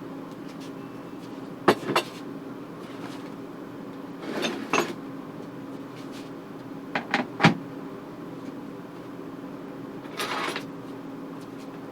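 Several sharp household knocks and clatters: two near two seconds in, a noisier pair around four and a half seconds, three in quick succession around seven seconds, and a short rustle near ten seconds. A steady hum runs underneath.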